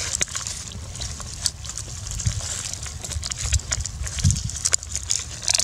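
Outdoor ambience: a steady low rumble with scattered faint clicks and rustles, as from dry leaves being disturbed.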